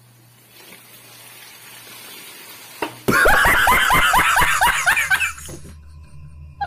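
A man laughing loudly in a rapid cackle, about five bursts a second. It starts suddenly about three seconds in, after a faint rising hiss, and dies down near the end.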